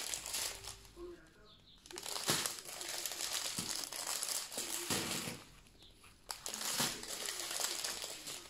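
Strip of clear plastic sachets of diamond painting drills crinkling and rustling as it is handled, with two short lulls, one about a second in and one a little past the middle.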